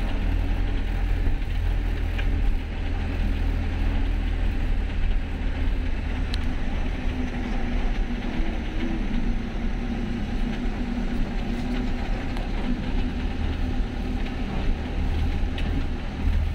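Motorhome bus driving slowly along a muddy, bumpy forest track: the engine and running gear give a steady low rumble, with a few faint clicks and rattles.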